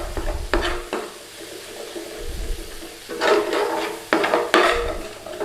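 A spoon stirring and scraping a sizzling curry spice paste loosened with a splash of base gravy in a hot pan. There are several sharp knocks of the spoon against the pan.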